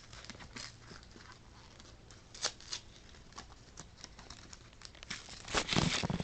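Foil booster pack wrapper crinkling as it is handled and torn open, in scattered crackles, with a louder burst of crinkling near the end.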